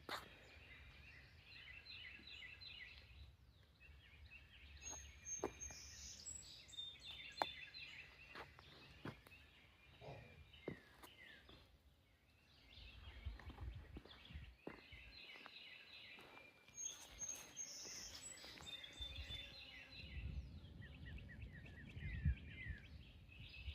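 Songbirds chirping faintly in quick repeated trills, with a high whistled note twice, over a low background rumble and a few light clicks.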